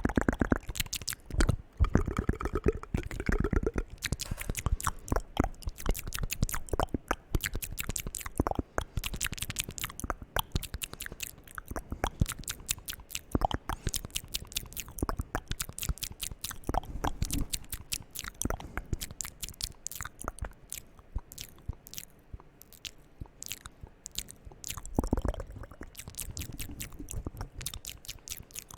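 ASMR mouth sounds made close to the microphone: rapid wet clicks, pops and smacks of the lips and tongue, in quick runs, with a few short hummed sounds about two seconds in and near the end.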